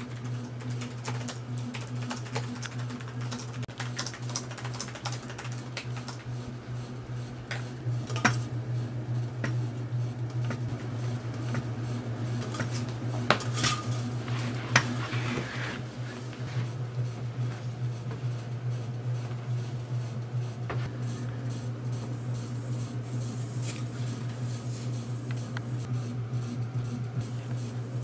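Laptop keyboard typing, a run of light clicks, over a steady low hum. A few louder, sharp clinks with a short ring come about halfway through.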